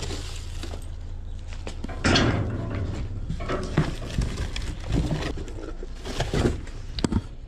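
Gloved hands rummaging through a cardboard box: cardboard flaps scraping and bending, plastic wrapping crinkling, and scattered knocks, over a steady low rumble.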